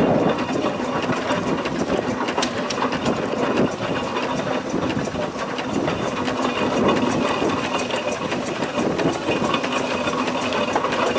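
Charles Burrell steam traction engine running: a steady hiss of steam with a quick, regular beat from the engine.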